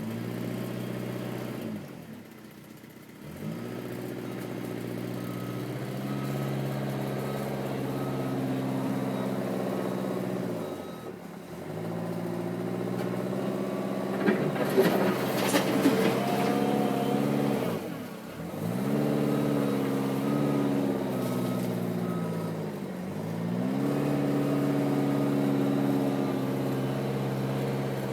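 Diesel engine of a Eurocomach E 235 K backhoe working, its pitch sagging and recovering about four times as the hydraulics load it. A burst of metallic clanks and scraping comes about halfway through, and a faint intermittent beeping is heard about a quarter of the way in.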